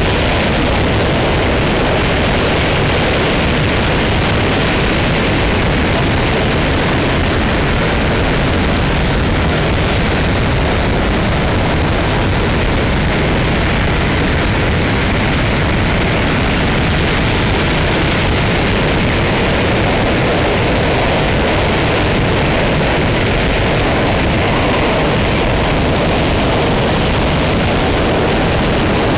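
RS-25 liquid-hydrogen/liquid-oxygen rocket engine firing at steady thrust during a hot-fire test: a loud, unbroken roar of exhaust noise that holds level throughout.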